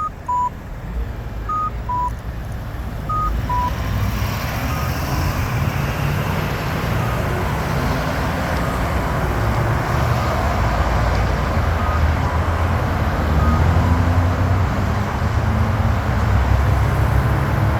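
Campbell accessible pedestrian push button beeping in a two-tone high–low pattern, about one pair every second and a half, fading under road traffic noise that swells after a few seconds and stays the loudest sound.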